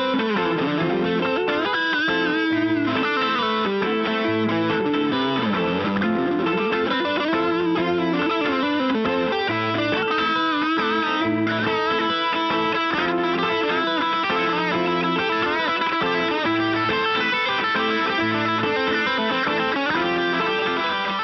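Les Paul electric guitar played through an amp with mild distortion: melodic lead lines with bent notes over repeated low notes.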